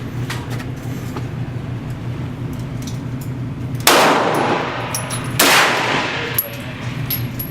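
Two loud gunshots about a second and a half apart, each with a long echoing tail, with fainter distant shots and a steady low hum between them.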